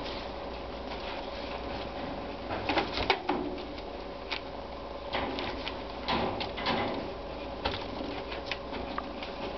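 Wire cage bars rattling and clinking as kittens climb and paw at the cage front: irregular clusters of sharp clicks, the loudest about three seconds in and again around six seconds in, over a steady faint hum.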